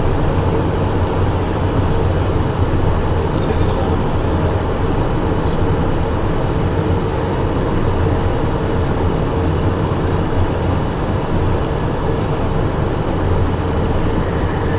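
Steady engine and air noise inside a Cessna Citation jet's cockpit: an even, unbroken drone with a low hum.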